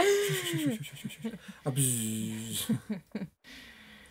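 Chickens calling: a call falling in pitch, then a quick run of short clucks, with a lower held call about halfway through.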